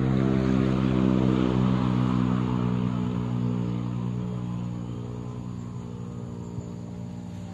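A motor engine running at a steady pitch, loudest in the first two seconds and then slowly fading as it moves away.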